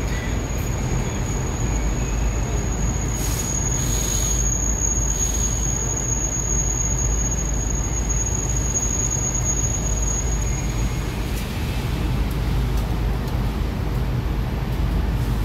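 Steady low rumble inside a Moscow metro 81-765 'Moskva' train car, with a thin high whine that stops about two-thirds of the way through.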